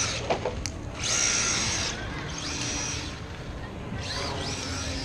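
Electric motor of a 1/16-scale Traxxas rally RC car whining in three bursts of throttle, high-pitched, the last one rising in pitch as the car speeds up. A sharp click comes a little under a second in.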